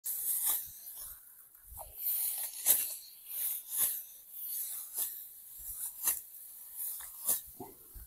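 Dry rice stalks crunching and rustling in short, sharp swishes, about one a second, from paddy being cut by hand with sickles.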